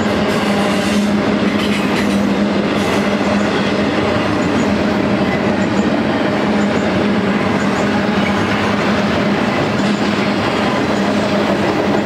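Double-stack intermodal well cars rolling past at speed: a loud, steady rumble of steel wheels on rail with a constant drone.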